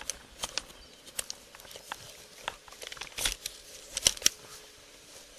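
Rustling and scraping of the officer's gear and rifle rubbing against the body camera, with scattered clicks and two sharper knocks about four seconds in.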